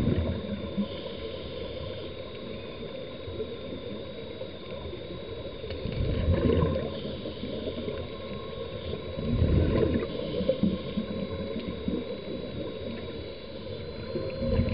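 Muffled underwater ambience heard through a camera housing: a low water rumble with two gurgling surges of scuba regulator exhaust bubbles, about six and nine and a half seconds in. A faint steady high whine runs underneath.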